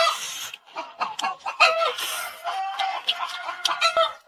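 Chickens clucking in a run of short repeated calls. A brief loud eating noise comes right at the start as a mouthful of rice is taken.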